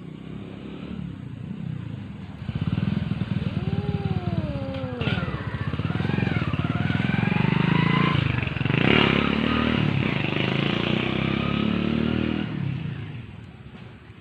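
An angry cat growling in a long, low, throaty rumble, with rising and falling yowls over it a few seconds in.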